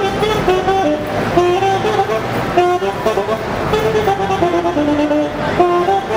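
Music: a melody of short held notes changing several times a second, with a second line moving in harmony.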